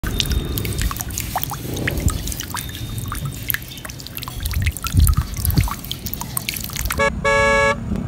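Water pouring and splashing into a shallow muddy pool, with many small drips and splashes. Near the end a horn sounds once, a steady tone lasting under a second.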